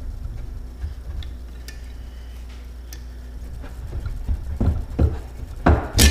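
Metal shift rod of a 1976 25 hp Evinrude lower unit being worked up and out of the gearcase: scattered light clicks, a run of knocks about four seconds in, then two sharp clanks near the end, the last one ringing briefly.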